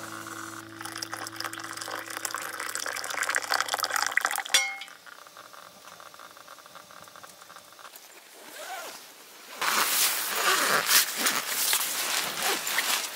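Liquid pouring and clinking in a glass tea mug for the first few seconds, over fading background music. After a quieter stretch, the fire in a small wood-burning camp stove crackles loudly from about ten seconds in.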